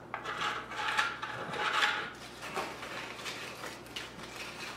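Rustling of a foil-lined cracker package and crackers being set down on a wooden board, in a few bursts over the first two seconds, then quieter handling.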